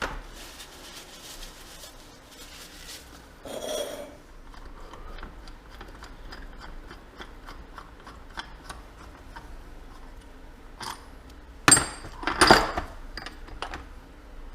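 Small metal parts and hand tools being handled on a workbench: a string of light clicks and taps, a short scrape about four seconds in, and two louder ringing metal clanks near the end.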